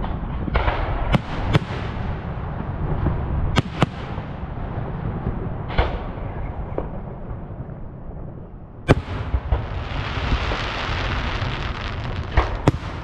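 Aerial firework shells bursting in the sky: about eight sharp bangs, some in quick pairs, over a steady low rumble. A spell of hiss follows the middle.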